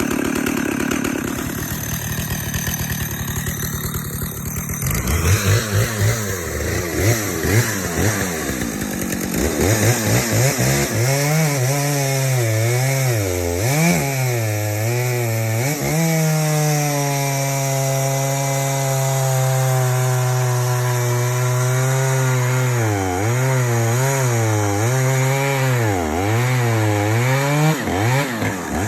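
Stihl 056 Magnum II two-stroke chainsaw cutting through a large red oak log, its tuning a little rich. The engine pitch dips and recovers over and over as the bar is leaned into the wood, with a steadier stretch of high revs in the middle of the cut.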